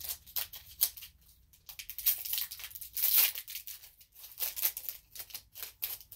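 Foil wrapper of a Pokémon TCG Evolutions booster pack being torn open and crinkled by hand: a run of sharp, crackling rips, loudest between about two and three seconds in.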